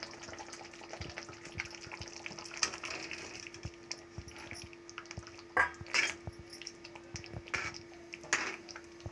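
Fried boiled eggs sizzling gently in spice gravy in a kadhai as a spatula stirs them. The spatula knocks against the pan a few times in the second half.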